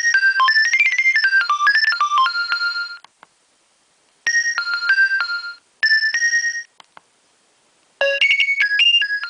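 Nokia 2300 mobile phone ringtones: a quick electronic melody that stops about three seconds in, two short phrases after a pause, then a different melody starting near the end.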